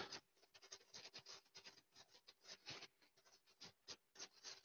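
Faint, irregular scratching and clicking of a small utensil stirring dry egg white powder and caster sugar together in a small container by hand, over a faint steady hum.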